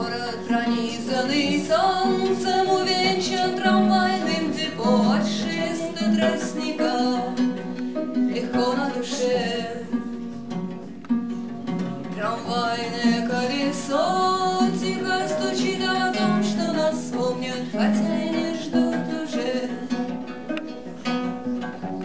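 A woman singing, her voice sliding up into several notes, over a plucked viola da gamba.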